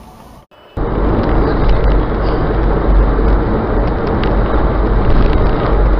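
Faint background, then an abrupt switch about a second in to a steady, loud rumble of engine and tyre noise heard from inside a car driving at highway speed.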